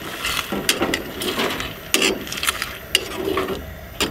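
Metal spatula scraping and clicking against a frying pan while tortilla chips are stirred in sauce: a series of irregular sharp clicks.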